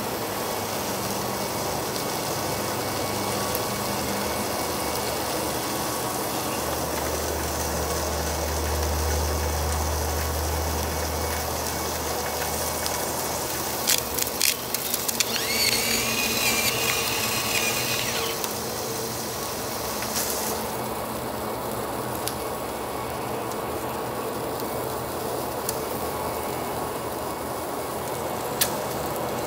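Pork slices sizzling steadily on the perforated aluminium plate of a disposable charcoal grill. A low rumble runs through the middle, a few sharp clicks come about halfway, and a high wavering call lasts a couple of seconds just after them.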